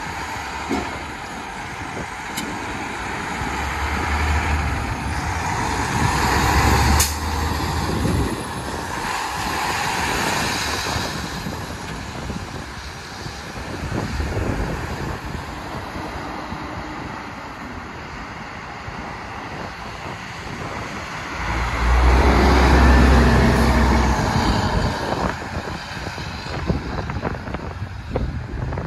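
Semi-truck diesel engines pulling away and accelerating, with passing road traffic. The engines surge loudest from about four to eight seconds in and again from about twenty-two to twenty-five seconds in, with a sharp crack around seven seconds.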